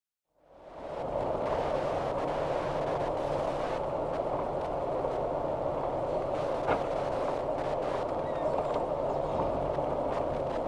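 Steady car cabin noise picked up by a dashcam: engine and road hum fading in about half a second in, with a single sharp click about two-thirds of the way through.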